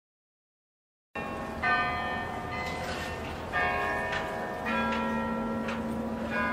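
Church bells ringing, starting about a second in: a new strike about every second, each with a long ring, the strikes at several different pitches.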